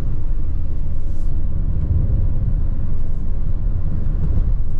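Hyundai Venue car on the move: a steady low rumble of engine and road noise.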